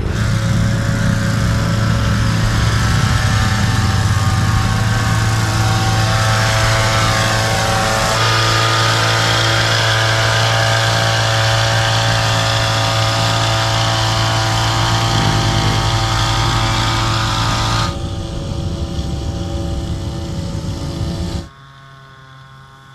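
Small two-stroke engine of a motorized backpack mist-blower sprayer running steadily at working speed while spraying. It sounds fainter near the end.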